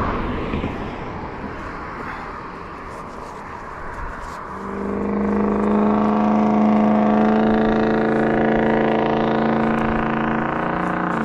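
A motor engine comes in about four and a half seconds in and runs at a steady pitch over a background hiss.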